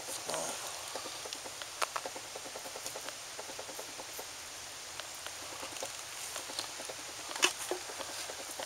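Faint handling noise while a fish is worked off a hook: scattered small clicks and rustles, with a few sharper clicks about two seconds in and again near the end.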